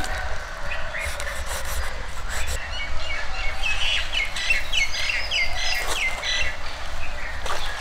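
A small bird chirping, with a quick run of short, falling chirps through the middle, over a steady low rumble.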